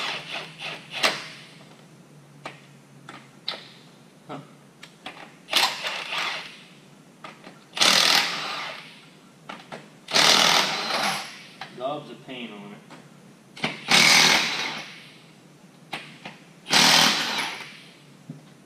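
Impact wrench hammering cap screws loose from a transmission case cover, in about five bursts of a second or two each, with short clicks and knocks between them.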